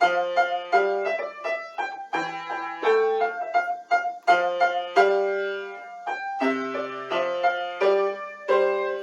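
Piano playing a hornpipe, a late-beginner practice piece: quick, separate melody notes in a steady beat over bass notes, with lower bass notes coming in for the last few seconds.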